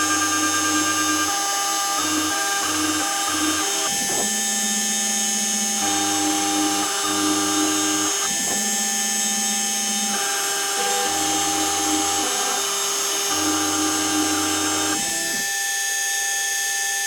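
Home-made CNC engraver at work: the spindle gives a steady high whine while the stepper motors hum in tones that jump in pitch or switch on and off every second or so as the axes move. The stepper tones stop near the end, leaving the spindle running.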